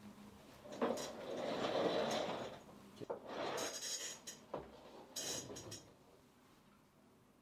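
Cloth rustling as a suit jacket is draped over a mesh office chair, then further rustles and a few sharp knocks as someone settles into the chair at the desk.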